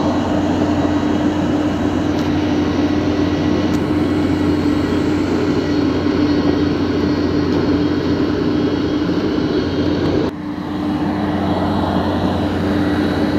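Huina RC wheel loader's electric motors and gearboxes whining steadily as it drives and moves its bucket, with a brief dip about ten seconds in before the whine picks up again.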